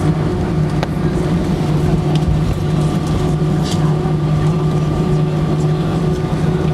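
Steady airliner cabin noise while taxiing: the jet engines at idle and the cabin air system giving a low drone with a few steady tones, heard from inside the cabin.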